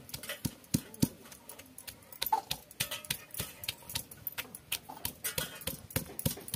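A pestle pounding roasted dry fish and onion on a stone grinding slab: a run of quick, irregular knocks, about three or four a second.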